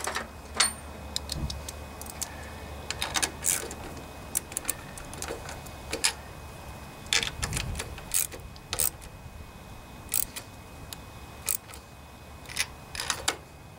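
Scattered light metallic clicks and clinks of a socket wrench and extension being fitted to and turned on a small engine's carburetor mounting bolts.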